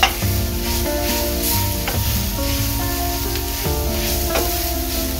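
Vegan ground beef with onion and garlic sizzling in a frying pan, under background music with held notes over a bass line.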